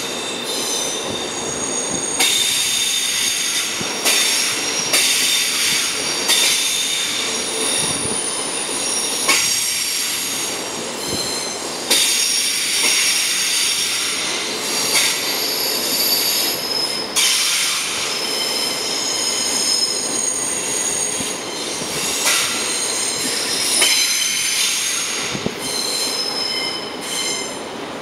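Deutsche Bahn passenger train rolling slowly past, its wheels squealing in several high, shifting tones over a steady rumble. A sharp clack comes from the wheels every one to three seconds.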